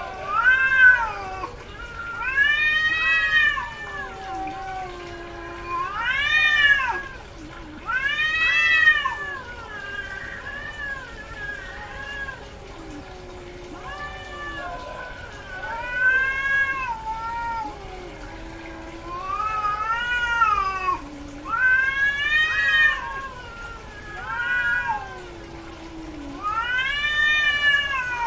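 Female cat in heat yowling over and over: about a dozen long, drawn-out meows that rise and then fall in pitch, with short pauses between them, typical of a queen calling during estrus.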